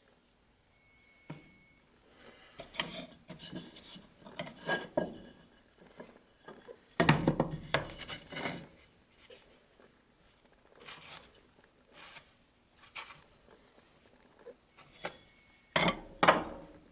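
Hardwood pieces being handled and set into wet glue: irregular rubbing and scraping with light knocks, loudest about seven seconds in and again near the end.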